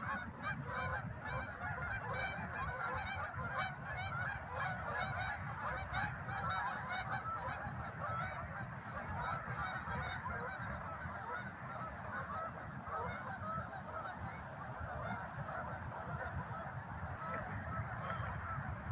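A flock of geese honking continuously, many calls overlapping; the calls sound a little fainter in the second half.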